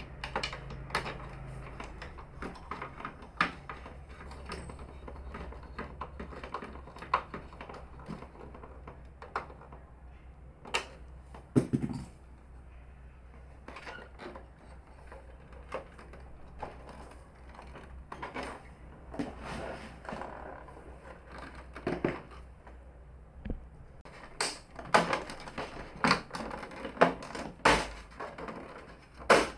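Irregular plastic clicks and knocks as the Canon MF4450 laser printer's casing and lid are handled and set back in place, with a heavier knock about twelve seconds in and a quicker run of louder knocks near the end.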